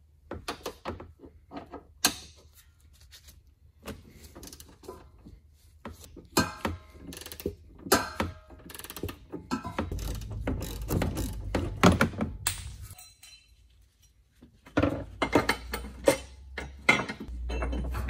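Socket ratchet wrench clicking in irregular runs as the lower bolt of a rear crash bar is undone, with knocks of metal on metal between the runs.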